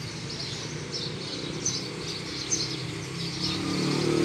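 Small birds chirping again and again over the low hum of an engine that grows louder near the end.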